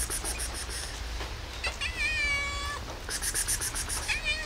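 Domestic cat meowing twice, begging for food: one long meow about two seconds in that drops in pitch at its end, then a shorter falling meow near the end. A high, even chirping of about seven pulses a second runs behind it at the start and again just before the second meow.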